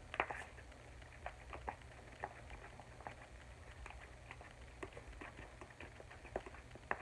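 Spoon stirring glue and slime activator in a container: faint, irregular soft clicks and taps, a few close together just after the start.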